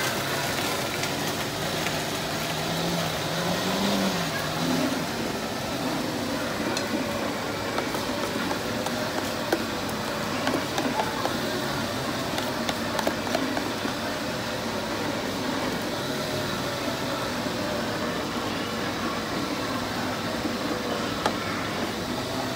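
Steady background din of a street-side stall with faint distant voices. Light clicks and scrapes of a metal spoon stirring pancake batter in a plastic tub.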